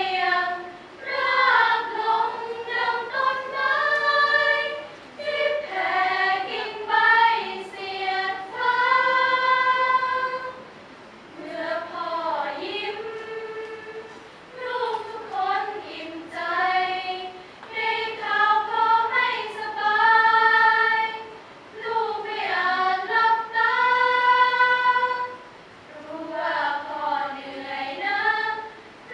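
Women's choir singing unaccompanied in several-part harmony, in phrases of long held notes. The singing drops to a softer passage about eleven seconds in and pauses briefly near the end.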